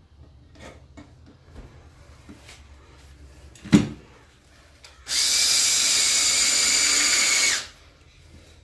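Cordless drill running steadily for about two and a half seconds, then stopping, as it bores a pilot hole through a metal bracket bolted to a rear differential. Before it come a few light clicks and a single sharp knock.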